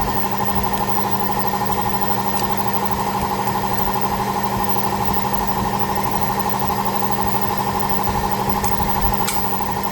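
A steady machine hum with a fast, even flutter, running unchanged; a faint click near the end.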